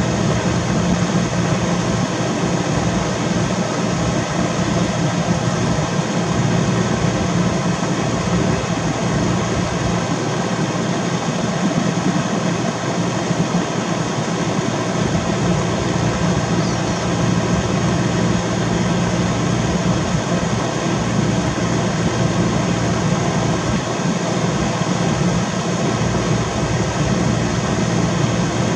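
Steady mechanical drone, a constant hum with a rushing noise over it that does not change throughout.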